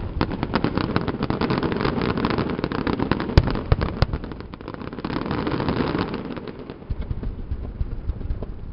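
Fireworks display: a dense, rapid crackling and popping of bursting shells and fountains, with two sharper bangs about three and a half and four seconds in.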